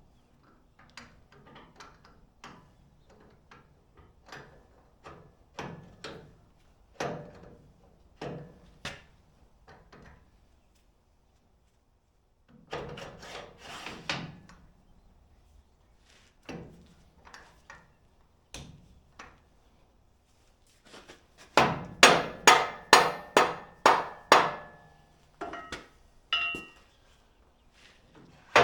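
Hammer blows and metal clanks while bolting steel bars onto a truck frame: scattered knocks, then a fast run of about a dozen loud hammer strikes, some four a second, with a short metallic ring, about three-quarters of the way through.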